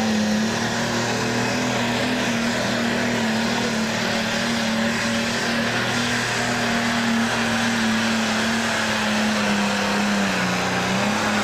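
Super stock pulling tractor's diesel engine running flat out under full load while pulling the sled, a loud steady drone. Its pitch sags briefly near the end, then picks back up.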